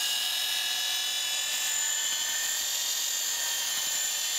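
Corded electric drill with a paddle mixer running at a steady speed in a bucket of cement-based stucco base coat: a high-pitched, even motor whine.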